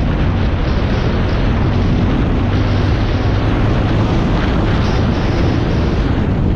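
Honda Talon side-by-side's parallel-twin engine running steadily, under a loud, even rushing noise.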